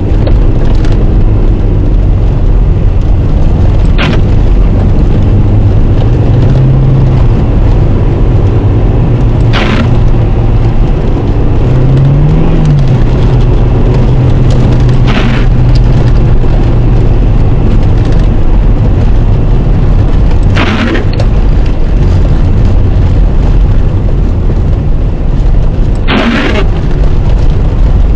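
Loud in-cabin rumble of a Toyota Camry's engine and tyres driving on a snow-covered road, with the engine note rising briefly twice. A short swish comes about every five and a half seconds.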